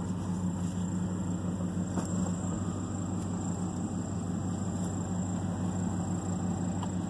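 Pickup truck engine idling steadily, a low even hum heard from inside the cab.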